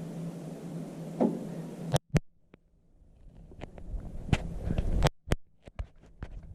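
A low steady hum that cuts off abruptly about two seconds in, followed by scattered small clicks and knocks of handling.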